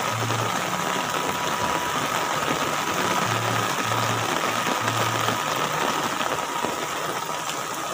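Heavy rain pouring steadily onto a clay-tile roof and the ground, running off the eaves in a dense, even hiss. A low hum comes and goes underneath.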